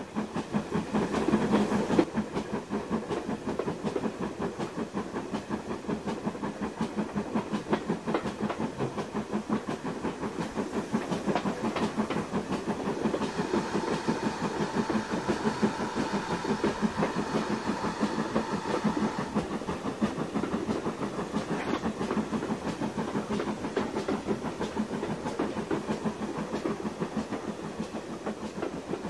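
Dubbed sound of a steam locomotive hauling a train at a steady pace, with a regular beat of exhaust chuffs and wheels clicking over rail joints.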